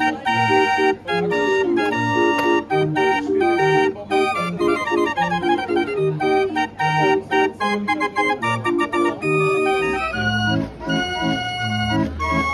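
Hand-cranked street barrel organ playing a tune, its pipes sounding a melody over a repeating bass-and-chord accompaniment. About ten seconds in the music switches to a different tune with a deeper bass.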